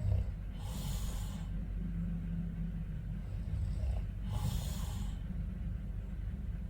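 A man snoring in his sleep: a continuous low rattle, with a breathy rush of air about a second in and again about four and a half seconds in.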